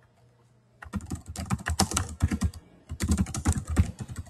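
Fast typing on a computer keyboard: two quick runs of keystrokes, the first starting about a second in and the second about three seconds in, with a short pause between.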